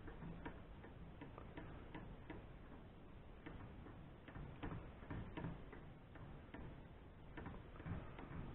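Faint, irregular light clicks and taps, a few a second, from small parts and hand tools being handled at a workbench.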